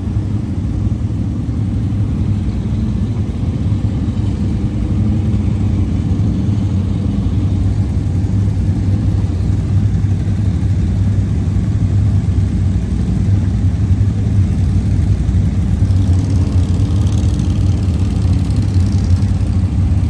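ATV engine running at a steady speed, a low, even drone.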